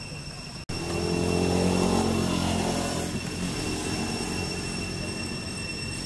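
Low engine hum of a passing motor vehicle, cutting in just under a second in, loudest around two seconds, then slowly fading. Steady high-pitched tones run underneath.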